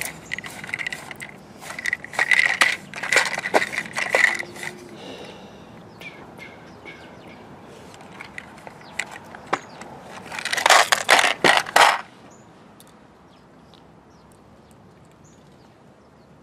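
Small steel grease fittings rattling and clinking in a round metal assortment tin as fingers rummage through them. The clatter comes in two bouts, one in the first few seconds and a denser one near the end, with scattered clicks between.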